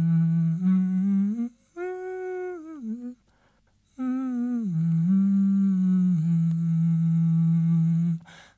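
A lone voice humming a slow melody in long, low held notes that glide from one pitch to the next, with a short break and then a pause of about a second partway through; it stops shortly before the end.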